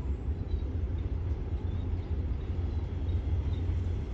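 Diesel railcar approaching slowly from a distance: a steady low rumble.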